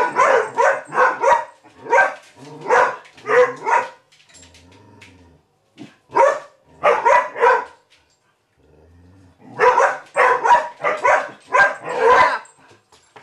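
A dog barking in rapid volleys, directed at a cat it is facing, with two short pauses about four and eight seconds in.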